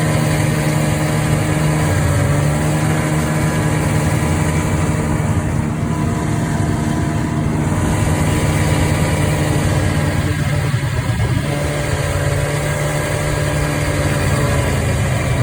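Two-stroke snowmobile engine running steadily while riding, its pitch shifting briefly about ten seconds in.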